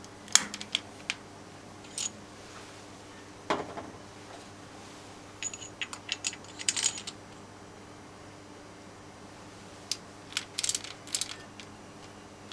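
Metallic clicks and clinks of a chuck key fitting and turning in the jaw screws of a lathe's four-jaw chuck, as the jaws are adjusted to center the work. The clicks come in several short clusters over a faint steady hum.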